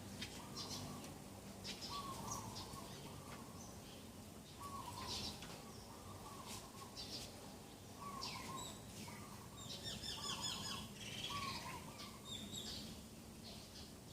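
Several birds singing and calling in the morning: a low short call repeats every second or two, mixed with higher chirps and whistles, and a quick trill about ten seconds in.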